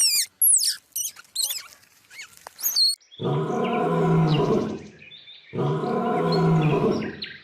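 A bird's quick high chirps and whistles, then two long, low calls from a large mammal, each lasting about two seconds, with a short gap between them.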